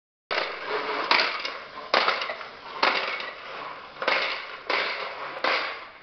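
Push-along corn popper toy rolled over a tile floor, its balls popping and clattering inside the clear plastic dome in seven bursts a little under a second apart, each dying away.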